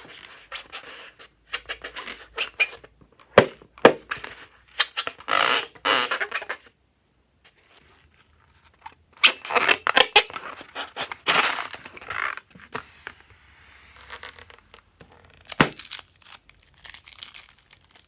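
Sticky slime being squeezed, stretched and pulled by hand, giving crackling, tearing and sticky popping sounds in uneven bursts, with a short silence about seven seconds in.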